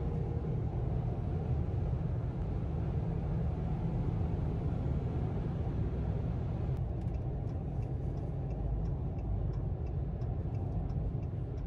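Car cabin noise at highway speed: a steady low rumble of tyres and engine. Faint, evenly spaced ticks come in over the second half.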